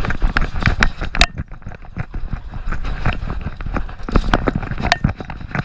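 Rapid, irregular knocking and rattling from a pug running with a GoPro strapped on: her footfalls and the jostling camera mount, picked up right on the camera.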